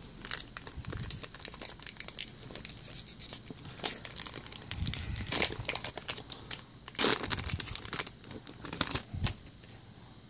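Foil wrapper of a Pokémon trading card booster pack crinkling and tearing as it is opened by hand, with louder rips about five and seven seconds in.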